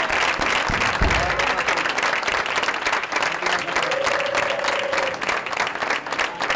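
A room full of people applauding, with steady dense clapping. A low thump comes about a second in, and a single held note rises above the clapping around four seconds in.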